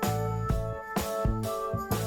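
Background music with a steady beat: sustained melody notes over percussion hits about twice a second.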